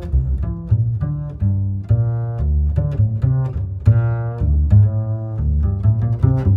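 Background music led by low strings, with short plucked bass notes changing several times a second.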